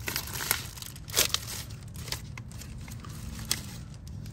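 A small clear plastic bag crinkling as gloved hands open it and take out the new O-rings, giving a few scattered sharp crackles over a faint low hum.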